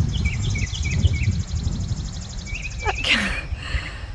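A bird chirping in short hooked notes, a few a second, over a steady high buzzing trill from insects and a low wind rumble on the microphone. The chirps pause and return briefly, and about three seconds in there is one short louder sound whose pitch falls.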